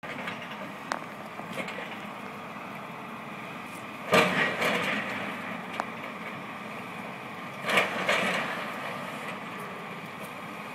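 Building demolition by a hydraulic excavator: the machine runs steadily while two loud crashes of breaking and falling rubble come about four and about eight seconds in, each trailing off over a second, with a few small cracks and clatters between them.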